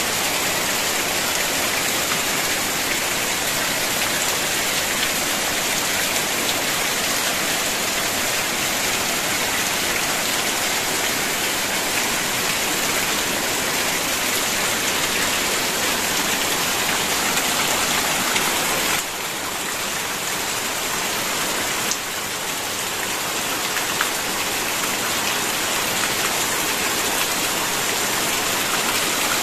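Heavy rain falling steadily on clay roof tiles and foliage, a dense even hiss of countless drops. The level drops slightly about two-thirds of the way through, then builds again.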